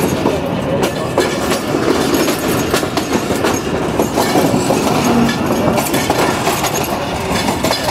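Pak Business Express passenger train running along the track, heard from aboard: a steady rumble of wheels on rail with quick, irregular clickety-clack over the rail joints.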